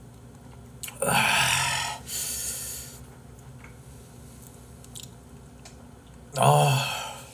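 A man's loud, hissing breaths about a second in, lasting about two seconds, then a pained "ah" near the end: his reaction to the burn of a very hot Cheongyang chili pepper he is eating.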